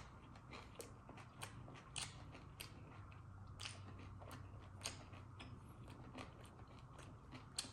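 Faint close-up eating sounds of a person chewing a meal: irregular soft clicks and smacks, roughly one every half second to second.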